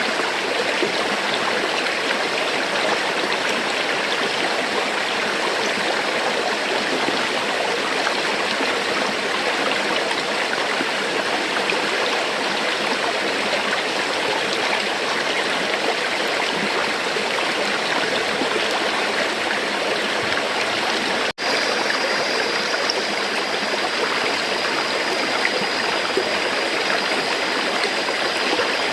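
River water flowing in a steady, even rush. There is a split-second dropout about two-thirds of the way through.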